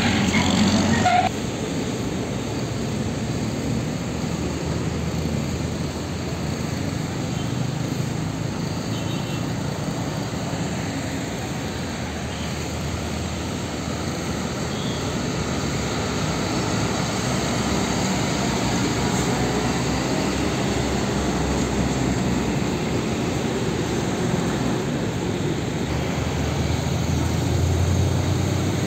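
Heavy diesel tanker trucks and road traffic passing: steady engine and tyre noise. The sound drops abruptly about a second in, and a truck engine's low rumble grows louder near the end.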